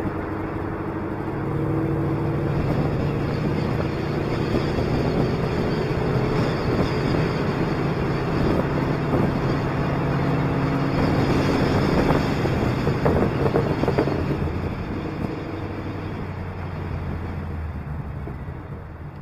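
Car engine and road noise while driving, with some wind on the microphone; it grows louder about a second and a half in, is loudest a little past the middle, then eases off toward the end.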